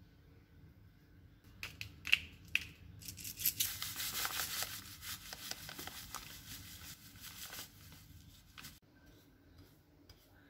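Panko breadcrumbs sprinkled by hand over a raw egg on a ceramic plate: a dense, crackly hiss of falling crumbs lasting about four seconds. A couple of sharp ticks come just before it.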